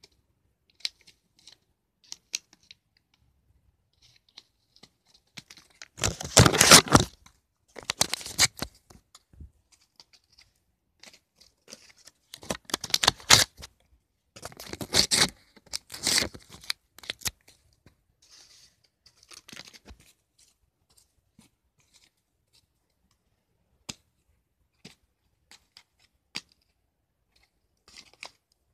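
A disc of lined notebook paper being torn apart by hand: several loud, noisy rips in two clusters, a third and about half-way through, with small rustles and crinkles between them.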